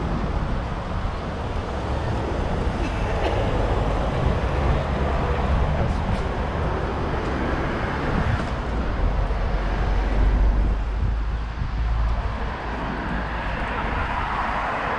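Street traffic: vehicles passing on a city street, with a deeper low rumble swelling about nine seconds in and fading again a couple of seconds later as a heavier vehicle goes by.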